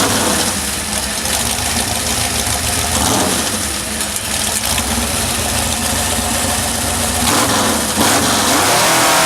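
Holden 253 V8 engine on a home-built chainsaw, just started and running loud and steady. It speeds up about eight seconds in.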